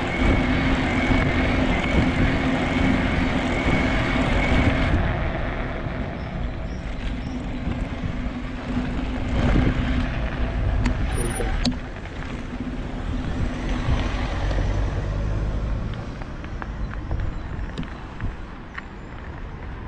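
Fat-tyre recumbent trike riding on an icy road: steady rumbling tyre and wind noise. A steady whine runs with it for about the first five seconds and stops sharply. The rest is quieter, with a few light clicks.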